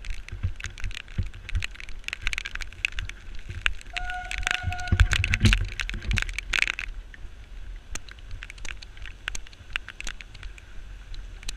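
A runner's footsteps on a dirt trail, with the handheld camera rattling and rumbling from being carried at a run. A brief steady tone sounds about four seconds in and lasts about a second and a half.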